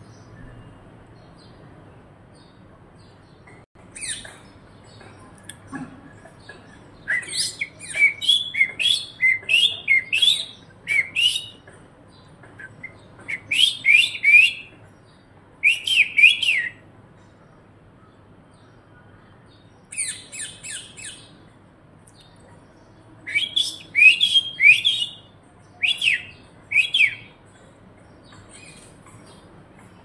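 Rose-ringed parakeet calling: runs of short, shrill, rising squawks, several a second, in bursts a few seconds long separated by pauses.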